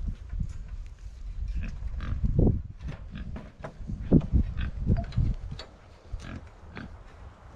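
Pigs grunting repeatedly in short low grunts, with scattered clicks and rustles among them.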